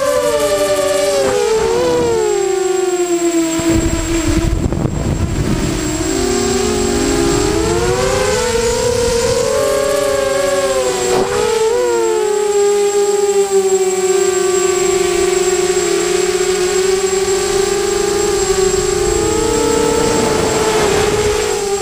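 Electric motors and propellers of a small multirotor drone whining. Several tones rise and fall separately as the throttle changes, and there is a burst of wind rumble about four to six seconds in.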